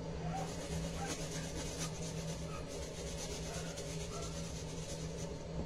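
Onion being rubbed down a metal box grater, repeated rasping strokes held over a stainless steel bowl, with a steady low hum underneath.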